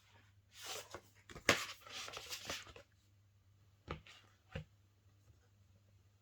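Hands handling a mediabook Blu-ray case and its packaging: about two seconds of rustling with a few sharp crackles, then two short light knocks less than a second apart.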